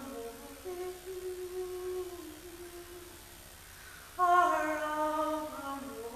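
A woman singing a broadside ballad unaccompanied: a long held line that falls slowly over about three seconds, a short pause, then a louder phrase from about four seconds in.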